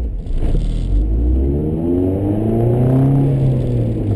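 Honda CRX's 1.6-litre four-cylinder engine with an aftermarket exhaust, heard from inside the cabin under hard acceleration. After a low rumble, the revs climb steadily from about a second in, peak around three seconds and ease off slightly near the end.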